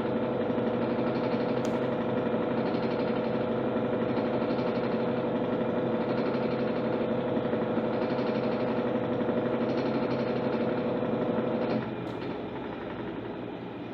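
Electrolux LTC10 top-loading washing machine running mid-cycle: a steady motor hum with a clear tone that cuts off abruptly about twelve seconds in, leaving a quieter whir that slowly dies away.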